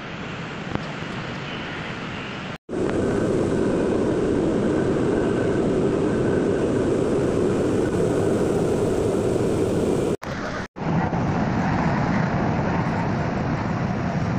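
Steady rumbling noise of a moving passenger train, heard from inside the carriage. It is quieter for the first couple of seconds, then louder, and cuts out abruptly twice where clips are joined.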